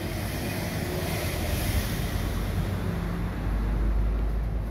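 Maspion MV-300 NEX wall exhaust fan running steadily in exhaust mode: an even rush of moving air over a low rumble that swells near the end. In this mode it runs a little slow, which the owner notices but cannot explain.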